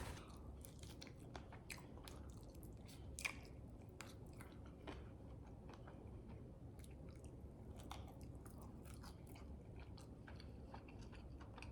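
Faint chewing of food, with soft, irregular mouth clicks and smacks.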